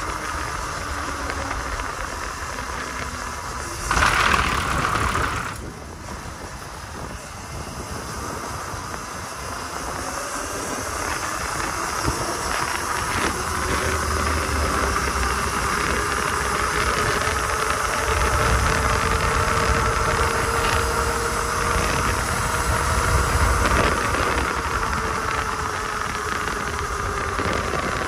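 Electric dirt bike motor whining as it is ridden, its pitch rising and falling slowly with speed, over low wind rumble. About four seconds in, a loud rush of noise lasts a second and a half.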